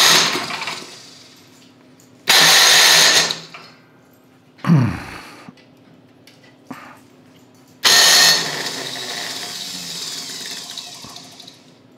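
New electric starter on a John Deere 1032D snowblower's engine, pressed in several short bursts to crank it with the spark plug out, so it spins without firing. The last burst fades out over a few seconds. The starter does not engage cleanly, which the owner puts down to damaged teeth on the flywheel.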